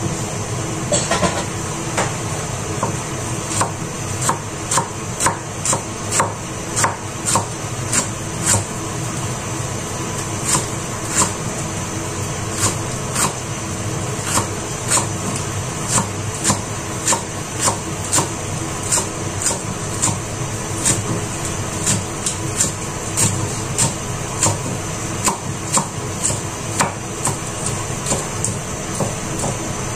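Kitchen knife chopping green onions on a wooden cutting board: a steady run of sharp knocks, about one to two a second, as the blade strikes the board.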